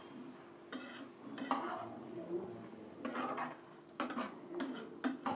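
A metal spoon scraping and knocking against a pan while a thick dal of chana and spinach is stirred, in several separate scrapes.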